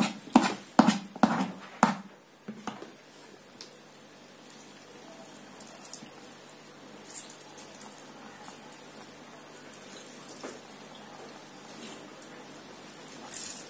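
A metal spoon scraping and knocking against a plastic colander full of grated zucchini, several quick strokes in the first two seconds. After that comes faint dripping and trickling as the pulp is squeezed by hand and its juice runs into the bowl beneath.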